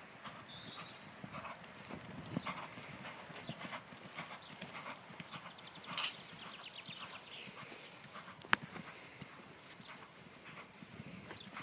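Hoofbeats of a Connemara pony being ridden on a sand arena surface, a steady run of soft thuds. A single sharp click sounds about two-thirds of the way through.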